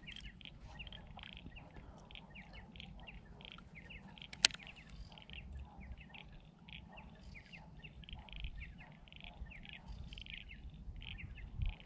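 Small birds chirping steadily, many quick short notes, over low wind rumble on the microphone. A single sharp click sounds about four and a half seconds in.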